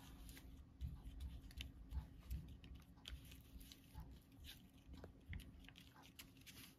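Faint, irregular soft taps and scrapes of a paintbrush mixing thick paint on paper, over a low steady hum.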